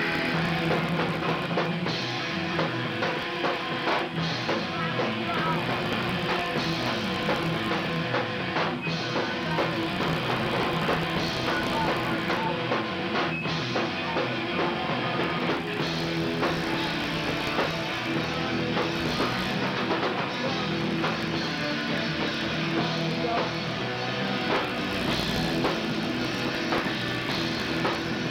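Hardcore punk band playing live: distorted electric guitars, bass and a drum kit playing a fast, loud song without a break, picked up by a camcorder's built-in microphone.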